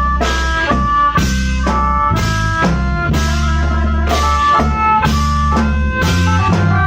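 Khaen wong prayuk band playing: khaen (free-reed bamboo mouth organs) hold chords over a deep low line and a drum-kit beat of about two strokes a second.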